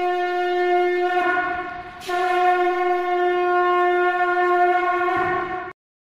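Conch shell (shankha) blown in two long, steady notes: the first fades out after about a second, the second starts about two seconds in and is held until it cuts off just before the end.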